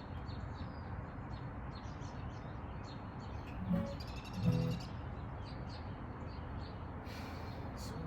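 Birds chirping in short, scattered calls over a steady low hiss, with two brief soft notes about four seconds in.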